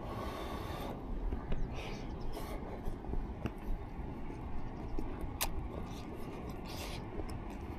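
A spoon scraping in a bowl of soup while eating, with a sharp clink about five seconds in.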